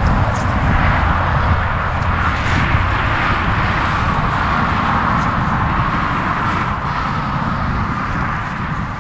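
Steady road noise from passing highway traffic, a broad tyre hiss that swells and eases slowly, over wind buffeting the microphone.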